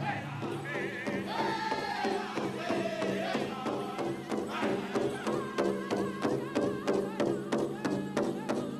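A powwow drum group singing a chicken dance song: high, wavering voices over a steady beat on a big powwow drum, about three strokes a second.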